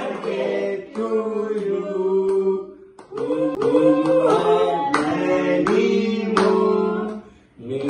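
A small family group singing a birthday song together in unison, in sung phrases with short breaths between them, with some hand clapping.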